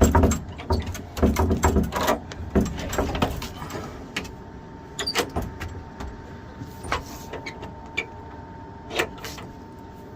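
Clicks, knocks and rattles of a sliding door and its makeshift pin latch being handled, busy at first and then a few single clicks, over the steady running of a furnace.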